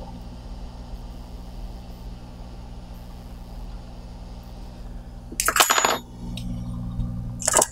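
Hot air rework station running with a steady hum and blowing air. About five and a half seconds in there is a sharp clatter, with more clinks near the end.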